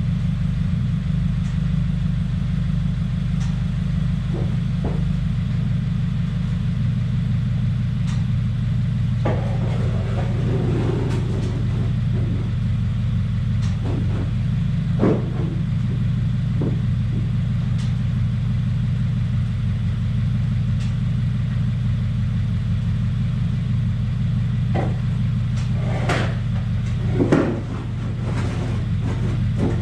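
2017 Subaru WRX's turbocharged flat-four idling steadily, with a few short knocks and clicks over it. The owner takes its running, with the air-fuel ratio way off, for the sign of a boost or vacuum leak after the charge pipe and top-mount intercooler were replaced.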